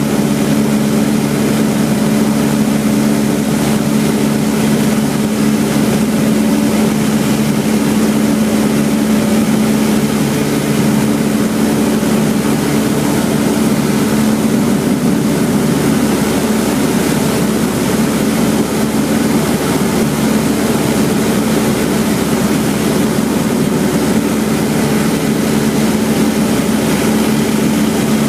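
Cessna 172's piston engine and propeller running steadily in flight, a constant low drone heard from inside the cabin.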